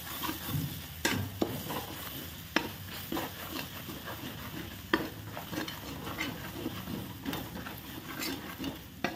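Ground spices and garlic paste frying in hot mustard oil in a kadhai, a steady sizzle, while a metal spatula stirs and scrapes across the pan. There are several sharp taps where the spatula knocks the pan.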